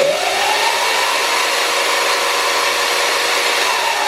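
Sur-Ron electric bike motor spinning up under the new KO Moto Pro controller during its motor calibration: a whine that rises over the first second, holds steady, then starts to wind down near the end, over a loud rushing hiss.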